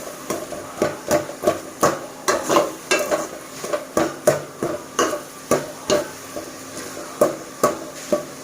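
A spoon stirring onions and tomatoes frying in a pot, knocking and scraping against the pot about two to three times a second, with a faint sizzle underneath.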